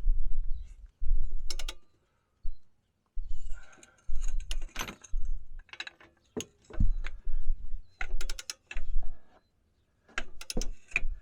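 Scattered metallic clicks and clinks of hand tools and brake parts being worked on a van's front brakes, some in quick runs of several clicks, over an intermittent low rumble.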